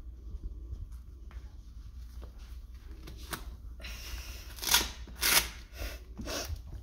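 Laces of a Nike baseball cleat being worked and pulled tight through the eyelets: a faint rustle, then a few short, louder rasps past the middle as the laces are cinched.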